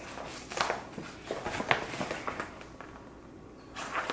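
Softbox fabric and its silver reflective lining rustling and crinkling as it is handled, with a few short scrapes and taps as a thin support rod is pushed through the cover's tabs.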